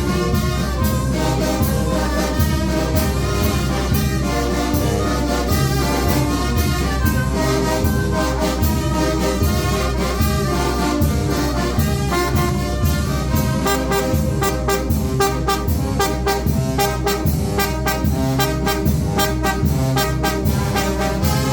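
Mexican wind band (banda de viento) playing: trumpets and trombones carry the tune over a steady beat of bass and percussion.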